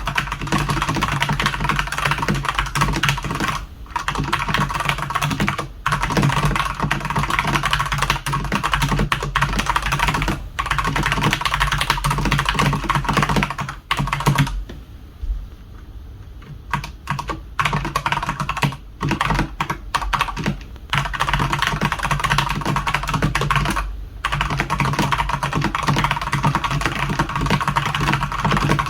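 Fast continuous typing on a Redragon Sindri K671 mechanical keyboard with Outemu red linear switches, a dense run of key clacks. It breaks off for a few seconds around the middle and for short pauses now and then.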